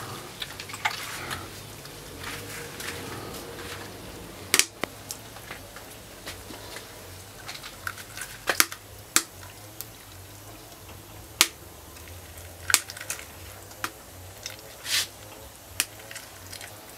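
Meat cleaver chopping through catfish on a wooden stump chopping block: about seven sharp, separate chops spread unevenly, the loudest a little past the middle.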